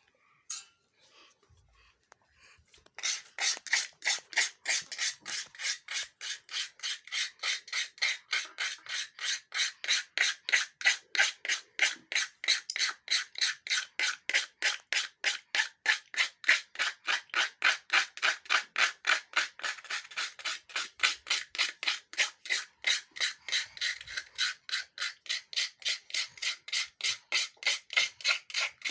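Rhythmic rasping, rubbing strokes, about three a second, starting about three seconds in and going on evenly.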